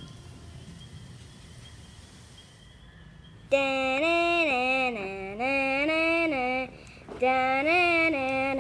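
A quiet stretch of faint hiss, then about three and a half seconds in a high voice begins singing a wordless tune in held notes that step up and down, in short phrases with a brief pause near the end.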